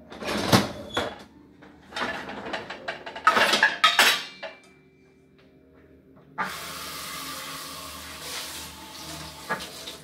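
Dishes knocking and water splashing in a kitchen sink during hand rinsing for the first few seconds. After a short lull, a kitchen faucet runs in a steady stream for about three seconds.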